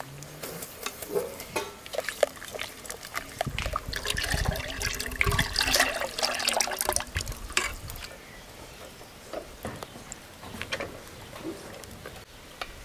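Milk pouring into an aluminium pot of milky mixture while a silicone spatula stirs it, the liquid splashing and sloshing with small clicks of the spatula against the pot. The pouring is loudest from about three and a half to seven and a half seconds in.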